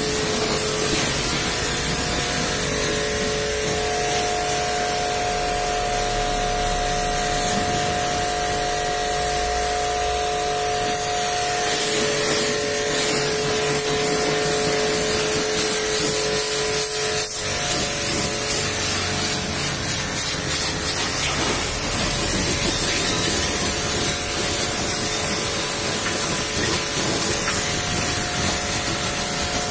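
Pressure-washer lance spraying a jet of water onto car bodywork: a steady hissing spray with splashing, over a steady hum.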